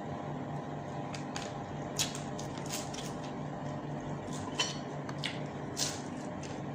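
Close-up eating sounds: wet chewing and lip smacks, with a few short sharp clicks, as food is eaten with the fingers. A steady low hum runs underneath.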